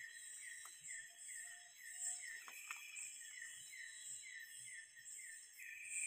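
Night insect chorus in tropical forest: a rhythmic chirping of about three pulses a second with a higher shrill trilling above it.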